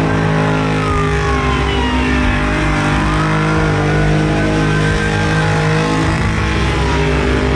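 Car engines running loud at the track, a steady drone with the pitch of one gliding down slowly as a car goes by.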